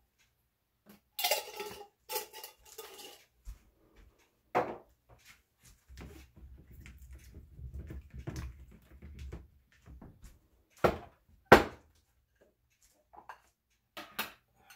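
Glass kitchen dishes and bowls being handled: a quick run of clattering knocks about a second in, then scattered clinks and knocks, the sharpest two a little before the end.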